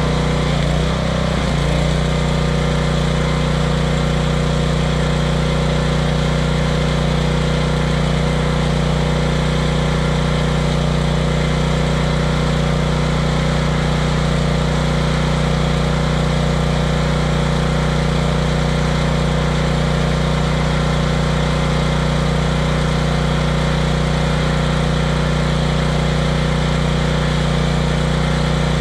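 Stick-welding arc burning steadily from an inverter welder, a constant hiss and crackle, over a steady engine hum.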